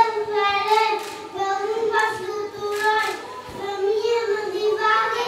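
Young children singing a song, with held notes that change about every half second to a second.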